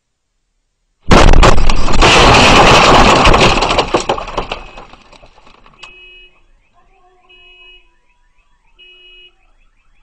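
Gas explosion: a sudden, very loud blast about a second in, a dense roar with crackling that dies away over about four seconds. Then a car alarm sounds faintly, repeating its tones about every second and a half.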